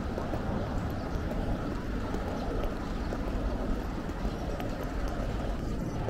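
City street ambience heard on foot: a steady rumble of traffic and crowd noise, with faint footsteps on the pavement.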